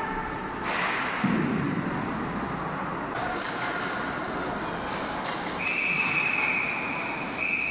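Hockey referee's whistle blown twice, a long steady blast about two thirds of the way in and a second blast near the end, stopping play as the goalie covers the puck. Underneath is the steady noise of the arena and the play on the ice.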